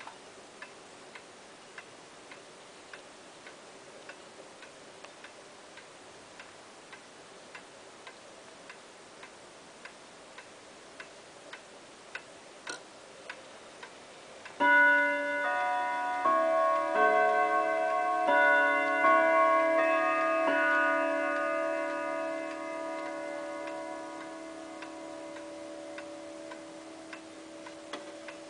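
A pendulum wall clock ticking steadily. About halfway through a sharp click comes, and some two seconds later its carillon chime strikes a run of several notes in a melody. The notes ring on together and slowly fade, the hour chime set off by turning the minute hand round to the twelve.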